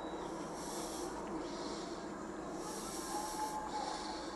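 Faint outdoor night ambience as a fireworks display dies away: a steady background rush with several short bursts of hiss.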